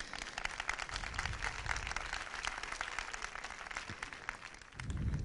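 Audience applause, many hands clapping fast, thinning out near the end.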